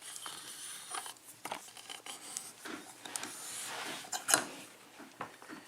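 Light metallic scraping and a few sharp clicks as a small pin-tumbler lock cylinder is taken apart by hand to get at its pins.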